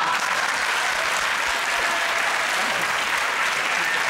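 Studio audience applauding steadily, with laughter mixed in, in response to a punchline.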